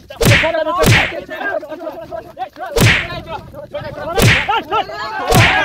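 Five sharp, loud slaps land during a brawl, two in quick succession at the start and then about every second and a half. Men's voices shout and yell between the blows.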